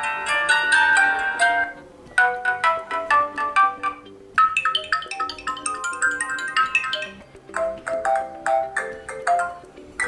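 Built-in ringtones of an ARCHOS Diamond Gamma smartphone previewed through its loudspeaker: about four short melodic tunes of quick notes, one after another, each cut off after a couple of seconds when the next ringtone in the list is tapped.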